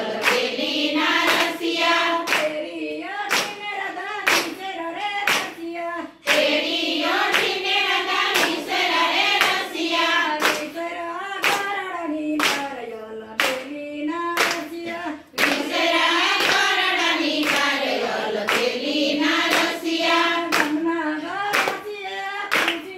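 Group of women singing a Gujarati Krishna bhajan together in unison, clapping their hands in a steady rhythm. The singing breaks briefly between lines twice.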